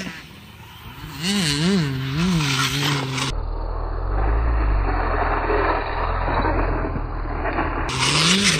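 Large-scale electric RC off-road trucks running on a dirt track. The motor whine rises and falls in quick throttle pulses, and the tyres scrape through loose dirt. A muffled low rumble fills the middle stretch.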